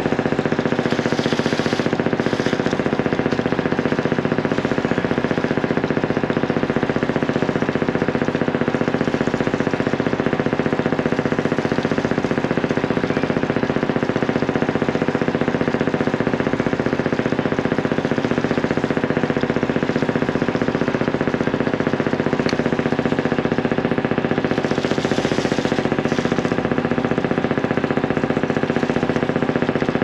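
Boat engine running steadily at idle, a continuous hum that holds the same pitch and level throughout.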